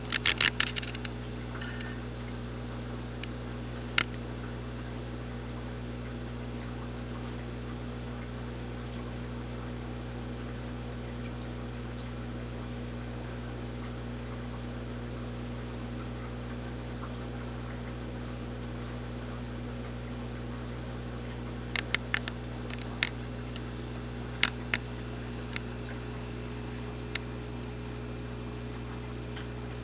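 Steady low mechanical hum with several fixed tones, broken by a quick run of sharp clicks at the start, a single click about four seconds in, and a scattered handful of clicks in the last third.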